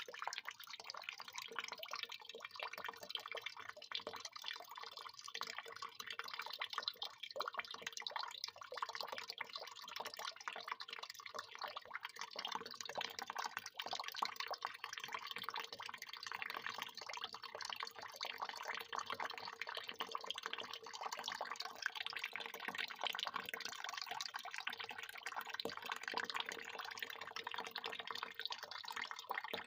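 Water pouring in a continuous, splashing stream, steady throughout.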